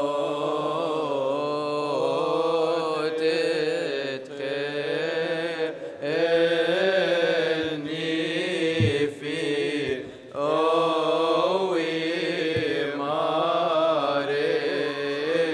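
Orthodox liturgical chant: voices singing long, ornamented melismatic lines without instruments, pausing briefly for breath between phrases.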